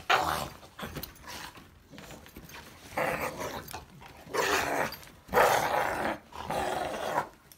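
Two pit bulls playfighting and growling at each other in about five short bursts, the loudest a little past the middle.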